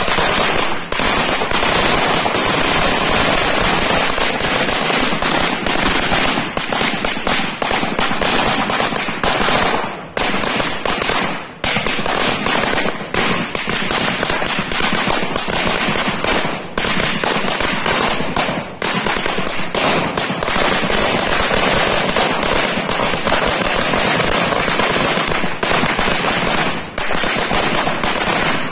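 A sawa, a long Filipino firecracker belt, going off in a rapid, unbroken stream of small bangs that starts suddenly.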